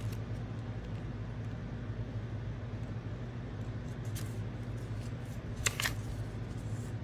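Paper pages of a pocket-size ring-bound planner being flipped and handled, with a few sharp clicks about four and six seconds in, over a steady low hum.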